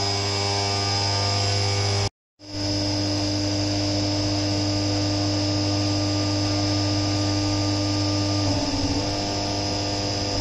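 Enclosed CNC milling machine roughing out an aluminium part under flood coolant: a steady spindle and cutting hum with a constant whine over it. The sound breaks off for a moment about two seconds in, and its tone shifts briefly near the end.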